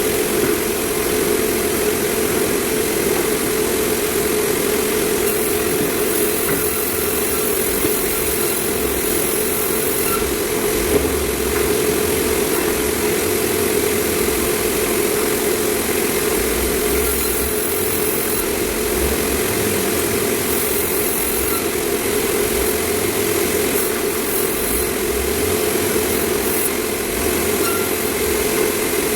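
Sawmill machinery cutting meranti timber, running steadily: one continuous, even drone with no pauses or changes in level.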